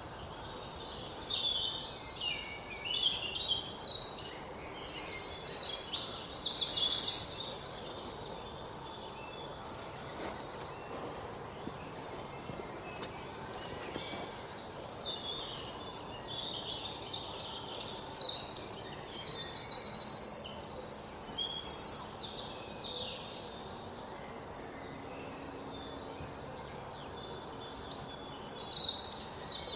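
Birds singing in high-pitched chirps and fast trills, coming in bouts a few seconds long with quieter spells between, over a faint steady outdoor background.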